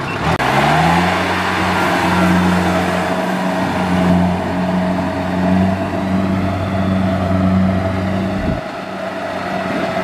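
Kubota DC70 Plus combine harvester's diesel engine running, its pitch rising about half a second in and then holding steady. The deep engine note drops away briefly near the end.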